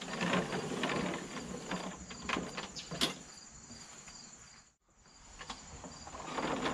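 Footsteps on grass and a push mower being wheeled across the lawn, with rustling and a few sharp clicks and rattles; the sound drops out briefly partway through. Crickets chirp steadily in the background.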